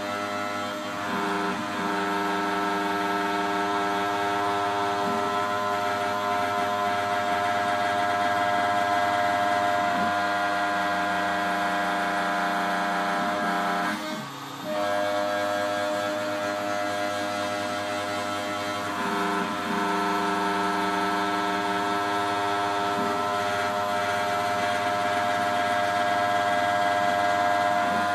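Home-built CNC router running through a cut: a steady whine of several held tones from the spindle and drive motors. It drops away briefly about halfway through, then comes back.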